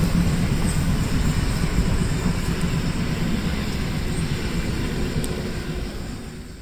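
Historic steam train running past, a steady rumble that fades away near the end.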